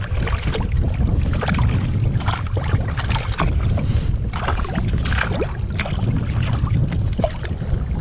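Wind buffeting the microphone in a steady low rumble, with sea water lapping and slapping against the kayak and scattered short knocks and splashes throughout.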